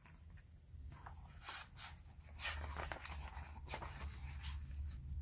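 Paper rustling as a page of a hardcover picture book is turned: a few soft, brief swishes.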